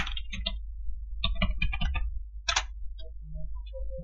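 Keystrokes on a computer keyboard: several short runs of quick clicks as a command is typed into a terminal, over a steady low hum.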